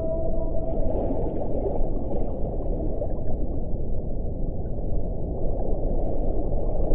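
Deep-water ambience: a dense, steady rumbling wash of noise, with a faint held whale call fading out in the first second.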